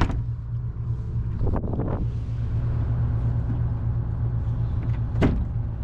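Trawler's engine running steadily with a low hum while the anchor is hauled. A few short knocks and clunks sound over it at the start, about a second and a half in, and near the end.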